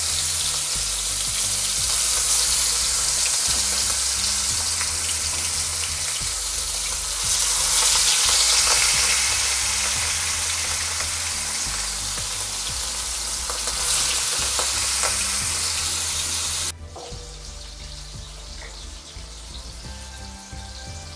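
Marinated leatherjacket fish pieces sizzling as they shallow-fry in hot oil in a pan. The sizzle is loud and steady, then drops suddenly to a softer sizzle near the end.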